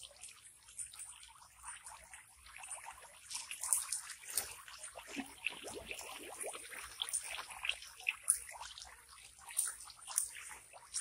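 Water trickling and dripping off a fishing net as it is lifted out of a pond: a faint, irregular patter of many small drips falling back into the water.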